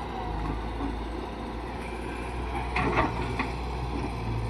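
A steady low machine rumble, with a quick cluster of sharp knocks a little under three seconds in.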